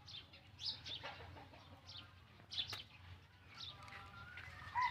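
Chickens: short high chirps and clucks scattered through, then a rooster begins to crow near the end, a long, even-pitched call.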